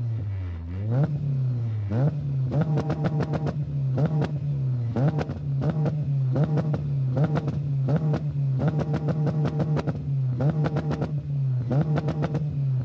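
Honda K20 four-cylinder engine held on two-step launch control: a brief rev up, then it holds at one steady pitch, bouncing off the launch rev limiter in repeated spells of rapid crackling cuts.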